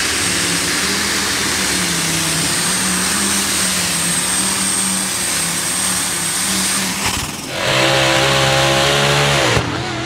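Modified pulling tractor engine at full power pulling the sled, a loud, dense engine noise with a thin high whine over it. About seven and a half seconds in it changes to another pulling tractor's engine revving high and holding, its pitch creeping up, then falling away near the end.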